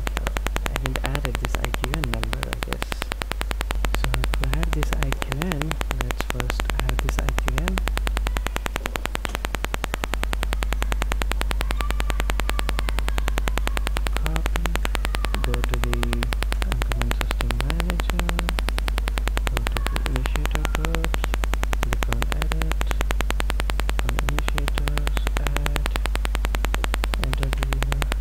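Steady electrical hum and buzz from a faulty microphone: a loud, constant low hum with a fast, even buzz over it.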